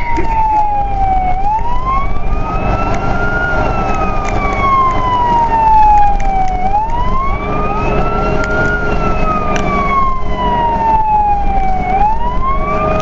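Fire truck siren wailing, rising and falling slowly at about one cycle every five seconds, over the truck's engine and road noise.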